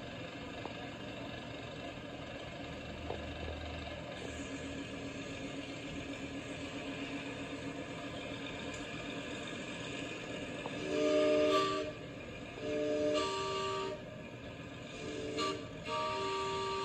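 A steam locomotive's chime whistle blows four blasts of a several-note chord: two fairly long, one short, and the last held. Before the whistle there is a steady low rumble.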